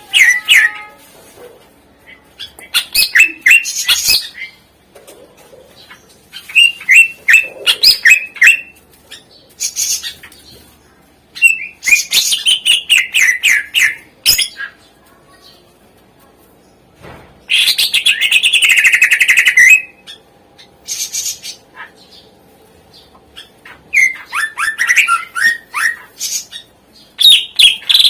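Green leafbird (cucak ijo) singing in loud bursts of quick, varied chirping phrases with short pauses between them, its song filled with phrases mimicked from other birds (isian). A long harsh rattling trill comes about two-thirds of the way through.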